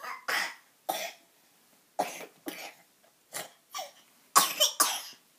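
A person coughing repeatedly: about ten short, harsh coughs in bunches, with a loud run of three in quick succession near the end.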